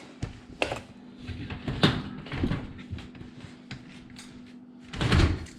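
Built-in dishwasher being pulled out of its opening: scattered knocks and clunks, the loudest about two seconds in and a heavier cluster of bumps near the end.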